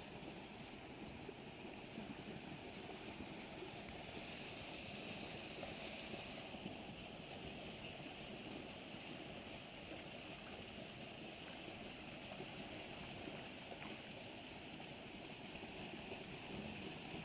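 Steady rush of fast, turbulent water flowing down a narrow concrete-lined canal.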